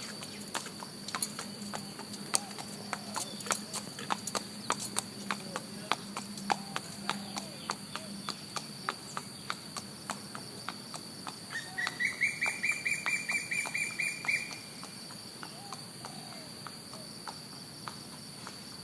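A steady high insect drone with scattered clicks and taps for the first half. About twelve seconds in, a bird gives a rapid chattering call of evenly repeated notes, rising slightly in pitch, that lasts about two and a half seconds.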